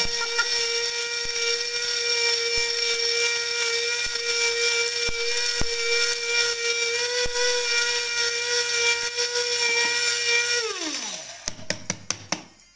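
Electric stainless-steel spice grinder running at a steady high whine while grinding cardamom pods, shells and all, to powder. About eleven seconds in it is switched off and the motor winds down, falling in pitch, followed by a few light clicks as the lid is handled.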